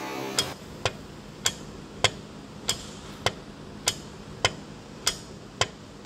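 A steady series of sharp taps or knocks, about one every 0.6 seconds, over a faint low hum.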